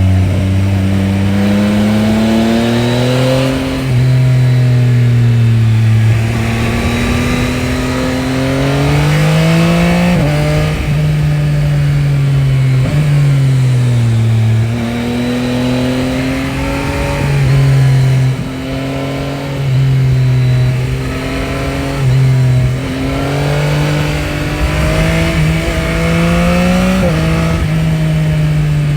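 Yamaha Tracer 9 GT's 890 cc CP3 inline three-cylinder engine on its stock exhaust, accelerating and revving. The pitch rises and falls again and again, with sudden drops as it changes gear.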